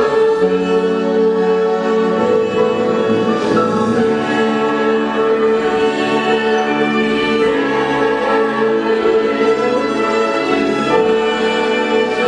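Orchestral music with held string chords and a choir-like sound.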